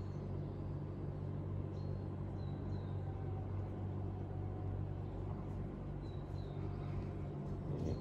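A steady low hum, like an engine or machine running, with a few faint short high chirps.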